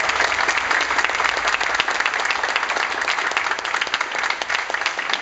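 A small group applauding, with one pair of hands clapping close by.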